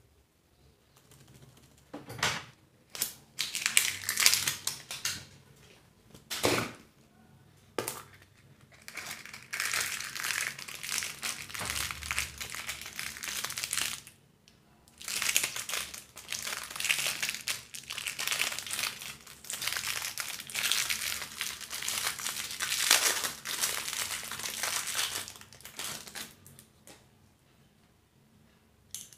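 Surprise-egg and candy wrappers crinkling as they are unwrapped by hand, in long spells of crackle with short pauses and a few sharp clicks in between.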